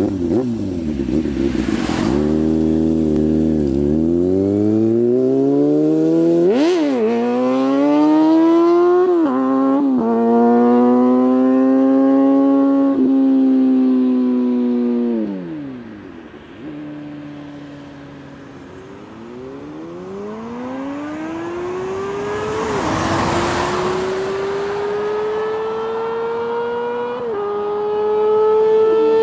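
2003 Kawasaki ZX-6R (ZX636B) four-cylinder engine breathing through a Laser X-tremeGP exhaust with its dB killer fitted, pulling away hard and revving up through the gears with quick shifts. The note fades off into the distance around the middle. From about two-thirds of the way in it comes back, climbing through the gears and growing louder as the bike approaches.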